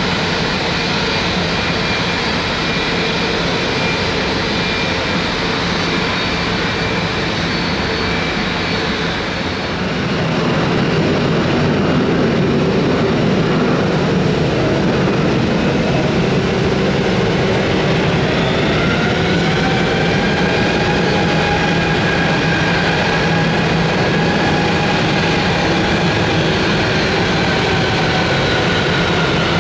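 Embraer ERJ-145's two rear-mounted Rolls-Royce AE 3007 turbofans whining at taxi power, then louder from about ten seconds in at takeoff power as the jet runs down the runway. Later a whining tone rises and then slowly falls in pitch as the jet goes past.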